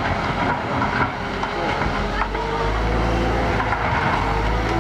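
Wheel loader's diesel engine running under load, a steady low drone that grows louder a little over halfway through.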